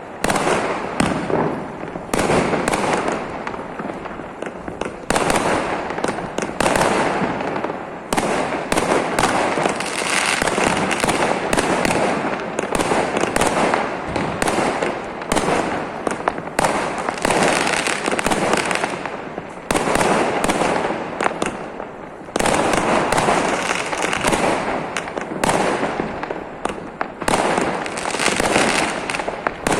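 Diwali fireworks going off: a dense, unbroken run of sharp bangs and crackling, many reports overlapping one another, with a few brief lulls.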